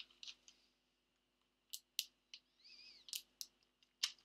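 A few scattered, faint clicks of computer keys, about eight in all, with a short high squeak that bends in pitch about two-thirds of the way through.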